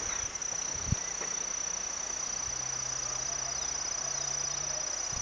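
Steady high-pitched insect chirring, one unbroken tone, with a single light tap about a second in.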